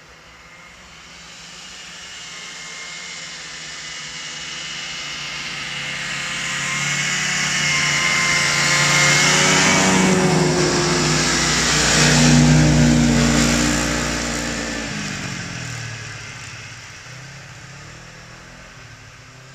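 Two snowmobiles approach along the trail and pass close by. Their engine sound builds, peaks as they go past, then falls in pitch and fades away.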